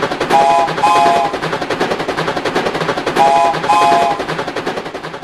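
Edited intro sound: a fast, even rattle of clicks with a short two-note tone that plays twice, about three seconds apart, fading toward the end.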